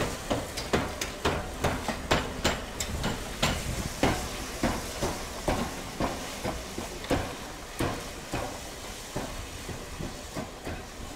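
Three-cylinder steam locomotive 60163 Tornado working at low speed, its exhaust beating in a steady rhythm of about three chuffs a second that slowly fades as it draws away.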